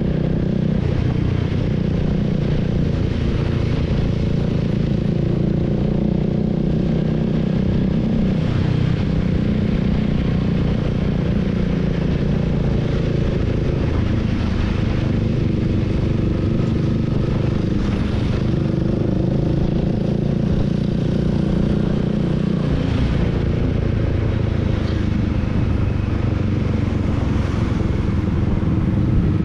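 Honda Rebel 300's single-cylinder engine running steadily while riding, its note shifting slightly a few times as the throttle changes.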